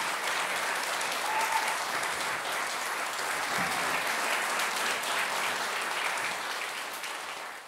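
Audience applauding steadily, with a brief cheer from the crowd about a second in; the applause fades out near the end.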